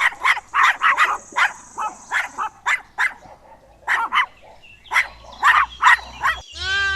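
A puppy yapping: a run of short, high barks, about two a second. Near the end a lamb's long bleat begins.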